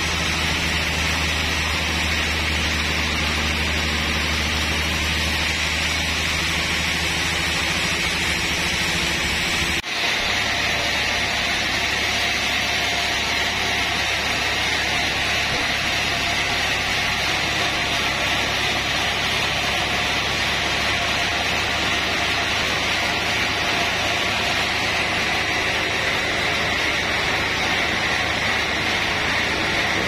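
Band sawmill machinery running with a steady mechanical drone and low hum. About ten seconds in the sound breaks off abruptly and a similar steady machine noise carries on with a somewhat different tone.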